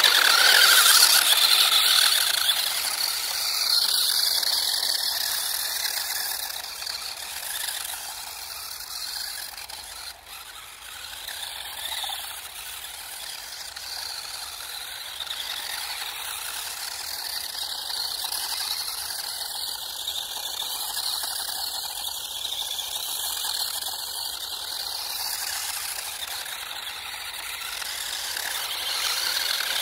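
Electric RC drift car, running on three 3.7 V Li-ion cells, giving off the high-pitched whir of its small motor and gear train. It is loudest about a second in, then fades to a steadier, quieter level.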